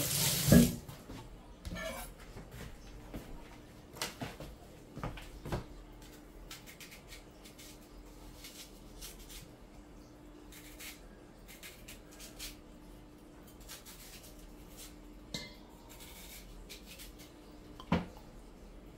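Kitchen tap running briefly at the start, then scattered light clinks and knocks of a knife and stainless steel mixing bowl as an onion is cut over the bowl, with a faint steady hum underneath.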